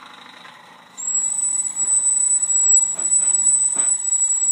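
Steam whistle on a 1920s German Bing toy steam engine, blowing one steady, high-pitched note for about three and a half seconds, starting about a second in.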